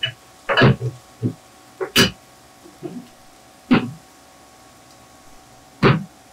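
Eating and tableware sounds at a meal: about seven short, scattered knocks and clicks as condiment bottles and dishes are handled on the table, the sharpest about two seconds in.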